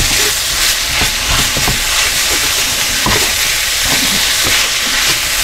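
Shaved chip steak with onions and mushrooms sizzling in a hot wok, with a steady hiss. A wooden spurtle scrapes and knocks against the wok now and then as the food is stirred.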